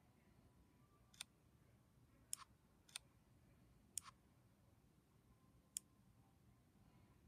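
A fingertip tapping a smartphone's glass touchscreen: five light, sharp taps at uneven intervals over faint room hiss.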